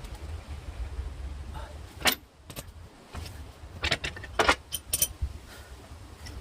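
A handful of short, sharp metallic clinks and clicks over a low steady rumble.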